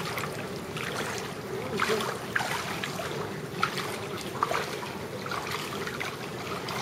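Floodwater swishing and trickling around the legs of someone wading slowly through shin-deep water, with a few light splashes from the steps.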